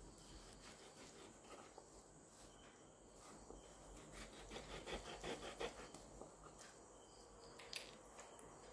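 Faint sounds of a knife cutting through raw chicken on a wooden board: a run of small ticks about halfway through and a sharp click near the end, over a faint steady high hiss.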